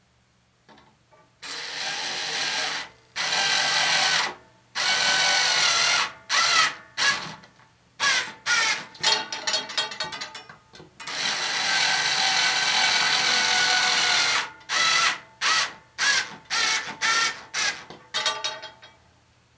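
Cordless drill driving screws into a wooden antenna boom. The motor whines in runs of a second or more, with a longer run about eleven seconds in, between strings of short quick trigger bursts.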